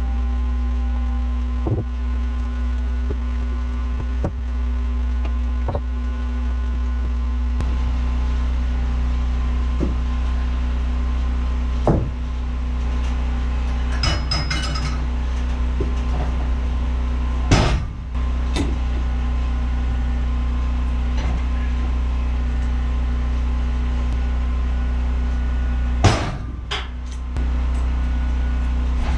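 Wood-Mizer LT15 sawmill engine idling steadily, with scattered wooden knocks and thuds as lumber is handled and a log is rolled onto the mill bed. The loudest thuds come a little past halfway and near the end.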